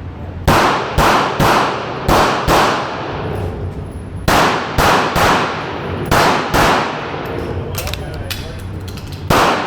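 Pistol shots from a Smith & Wesson Shield Plus compact pistol, fired in quick pairs and threes: about eleven shots in all, with short pauses between the strings, each shot ringing out briefly.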